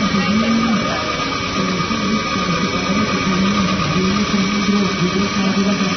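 A small motor in a radio-controlled model runs steadily, its pitch wandering up and down as the speed changes, over a constant background hiss and a thin steady high tone.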